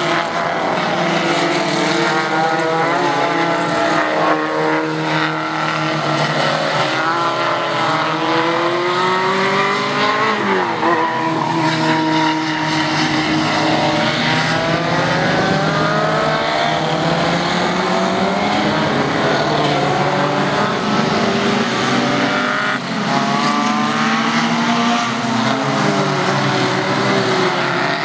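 Engines of several modified hatchback race cars lapping a circuit, overlapping notes rising as they rev up through the gears and falling back off the throttle. The pitch dips sharply and climbs again about ten seconds in.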